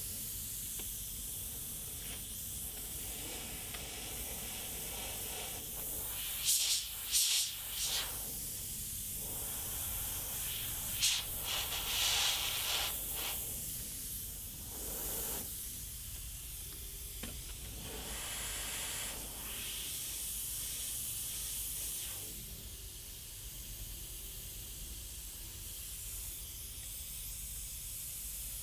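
Gravity-feed airbrush spraying paint, a steady high hiss of air. A few short, louder bursts of spray come in quick succession about a quarter of the way in and again just before the middle.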